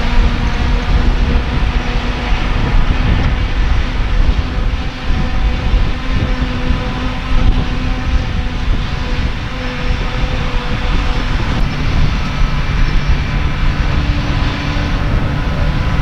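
Claas Jaguar 940 self-propelled forage harvester working under load while chopping grass: a loud, steady machine noise with several held tones. A lower steady tone comes in about twelve seconds in.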